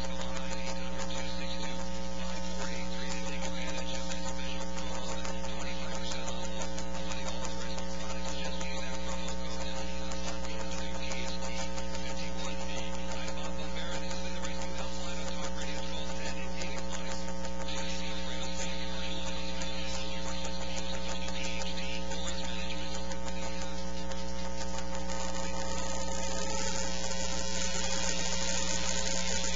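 Steady electrical mains hum with a hiss over it, unbroken throughout, with the hiss growing brighter near the end.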